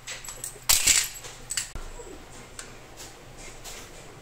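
Hands handling a plastic wall socket and its copper wiring: a loud clatter of small hard parts about a second in, then scattered light clicks and rattles.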